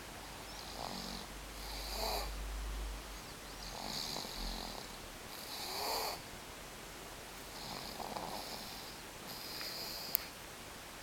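Snoring in sleep, a rasping breath about every two seconds, with a brief click near the end.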